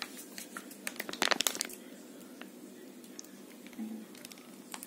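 Plastic mayonnaise packet crinkling as it is handled and squeezed out over grated potato, with a cluster of crackles about a second in and a few scattered small clicks.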